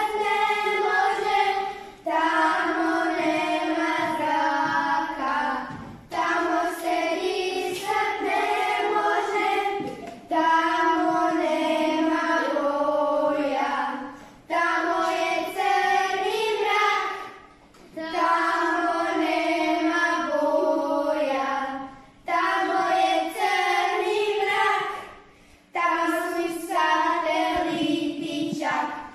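A small group of children singing a song together in Croatian, in phrases of about four seconds with short breaks between them.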